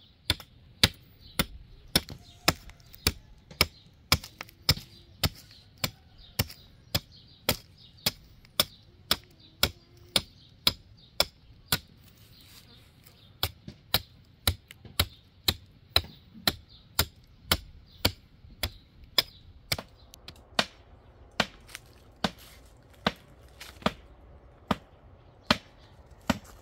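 Hatchet chopping a wooden branch: a steady run of sharp strikes, about two a second, with a brief pause about halfway through and the blows coming more slowly near the end.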